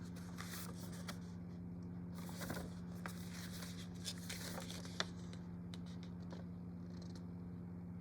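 Steady low electrical hum, with faint scattered clicks and light handling noises and one sharper click about five seconds in.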